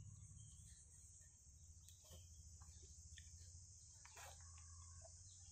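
Near silence: a faint, steady, high chirring of insects such as crickets, with a low hum and a few faint clicks.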